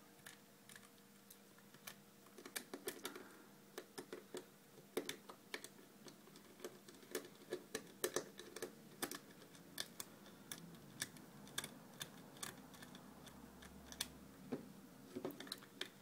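Irregular small clicks and taps of a small cross-headed screwdriver and tiny screws working against a keypad's housing as the screws are refitted.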